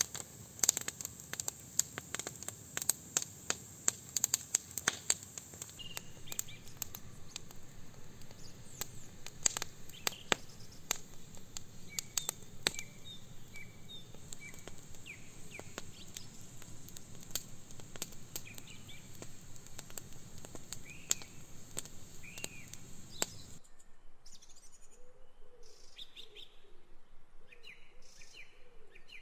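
Wood fire crackling with irregular sharp pops over a steady hiss, while small birds chirp. Near the end the crackle stops and only birdsong remains: chirps and a lower repeated call.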